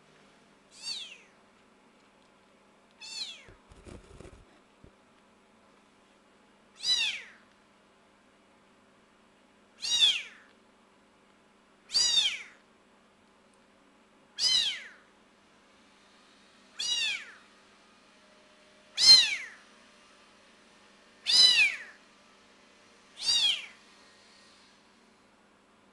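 Very young kitten meowing over and over: ten short, high-pitched calls, each falling in pitch, one every two to three seconds.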